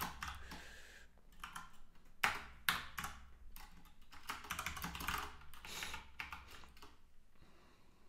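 Typing on a computer keyboard in quick bursts of keystrokes, with a couple of louder key strikes a little after two seconds in, thinning out near the end.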